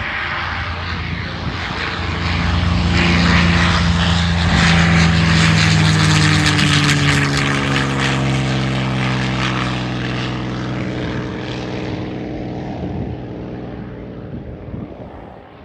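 P-51 Mustang's Merlin V-12 engine and propeller at takeoff power as the plane lifts off and passes. It builds to its loudest a few seconds in, drops in pitch as it goes by, and fades as it climbs away.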